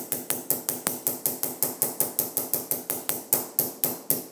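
A fidget spinner repeatedly striking a pencil: a fast, even run of hard clicks, about seven a second, that pits the pencil with many dots.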